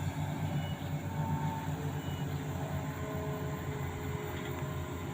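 Diesel engine of an amphibious excavator running steadily, a low drone with faint higher tones coming and going.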